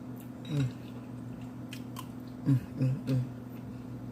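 A person chewing food and giving short "mm" hums of approval: one about half a second in, then three quick ones in a row a little past two seconds, with a few faint mouth clicks between.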